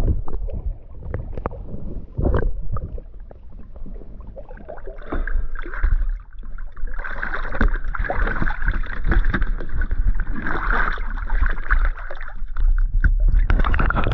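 Sea water sloshing and splashing around a camera at the surface and just below it, with a heavy low rumble and uneven gurgling surges.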